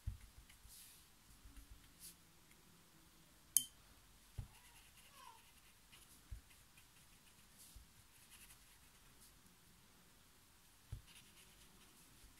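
Faint swishing strokes of a wet round paintbrush on watercolour paper, with one sharp click about three and a half seconds in and a few soft knocks.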